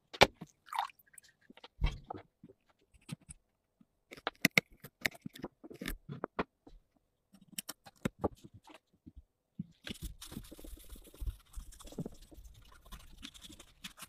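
Small clicks and knocks of tools and metal parts being handled. From about ten seconds in, a continuous rubbing noise like a cloth being worked over a part.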